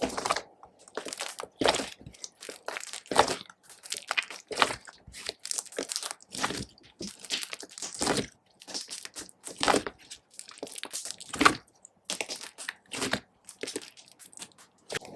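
Slime being squeezed and worked by hand, giving irregular crackling, clicking pops, with a louder pop roughly every second and a half.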